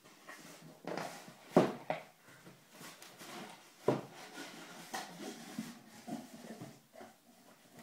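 Cardboard packaging being handled and opened: rustling and scraping, with sharp knocks about one and a half seconds in and again near four seconds in.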